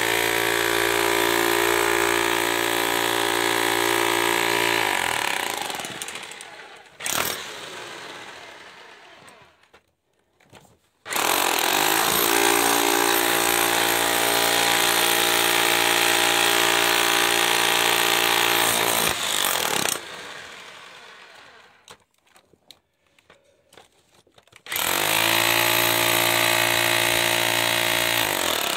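Jackhammer breaking rock, run in three bursts of several seconds each, about 5 s, 8 s and 4 s long. The motor's pitch drops as it winds down at the end of the first two bursts. A single sharp knock comes in the gap after the first burst.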